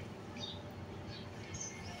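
Faint, scattered drips of milk falling from the lip of a steel pot into a bowl of milk, a few small plinks spread over the moment.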